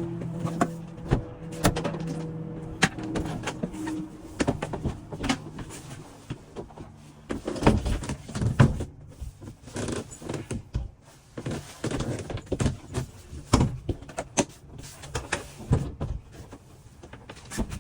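Irregular clicks, knocks and thuds of doors and latches being opened and shut, over music that fades out in the first few seconds.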